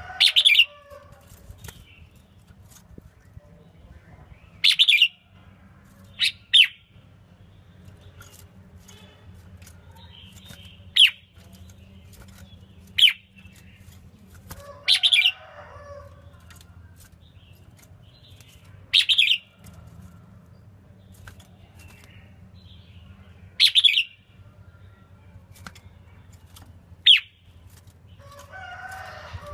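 Red-whiskered bulbul singing short, loud phrases, about ten in all, each under a second and spaced a few seconds apart, over a faint steady low hum.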